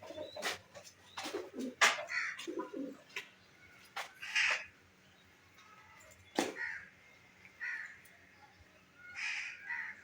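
Chickens and other penned birds calling in short, separate bursts, with a few sharp knocks among them, the loudest about two seconds in.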